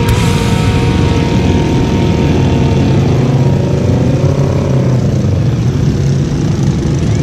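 Motorcycle engines of a large group ride running together as a loud, steady drone, with one engine's pitch rising and falling about halfway through.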